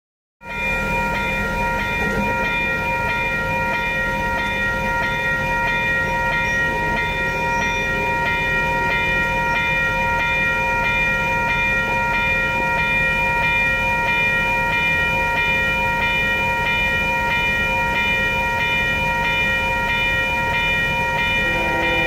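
Railroad grade-crossing warning bell ringing continuously at a steady level, over a low hum of waiting road traffic. A lower tone joins just before the end.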